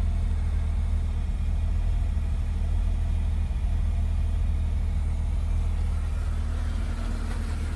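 1991 Jeep Wrangler's 4.0-litre straight-six engine idling steadily. It is running again with a new crank position sensor fitted, after a no-spark, no-start fault.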